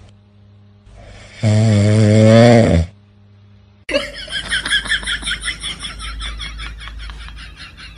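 A sleeping puppy snoring: one long, loud snore with a wavering low pitch about a second and a half in. From about four seconds in, background music with a quick, even pulse takes over.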